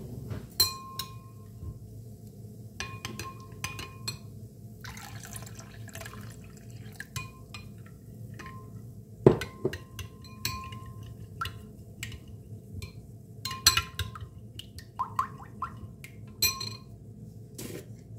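Metal teaspoon stirring yogurt thinned with liquid in a glass bowl, clinking repeatedly against the glass, which rings briefly after each clink. A short pour of liquid into the bowl about five seconds in.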